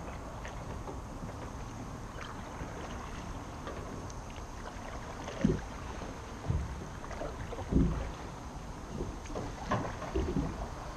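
Kayak paddle strokes splashing in calm creek water, about five of them roughly a second apart in the second half, over a steady low rumble of wind on the microphone.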